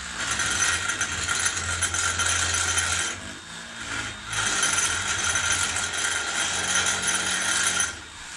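Ozito 18V cordless random orbital sander with 40-grit paper running against wood, giving a loud scraping hiss over a motor hum in two spells of about three seconds each, with a dip about three seconds in. It is being worked back and forth with lighter pressure so the pad spins freely again after being pressed down to a stall.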